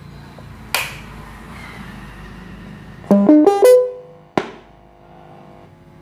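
A sharp click, then a loud, quick run of five or six electronic notes, mostly rising and ending on a held note that fades, played through a digital school bell timer's speaker, followed by another sharp click.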